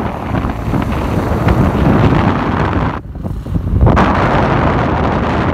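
Wind buffeting the microphone: a loud, rough low rumble that drops away for about a second, three seconds in, then gusts back.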